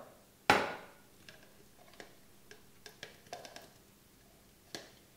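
A metal tablespoon knocking sharply once against a plastic jar as thick pine tar is scraped off into it, followed by a scattering of faint light clicks and taps as the spoon and jar are handled.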